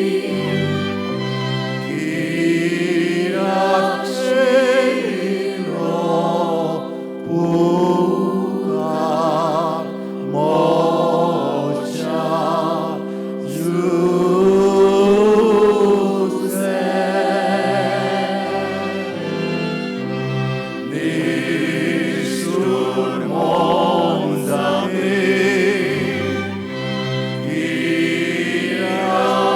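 A choir singing a slow motet in several parts, the voices holding sustained chords with vibrato.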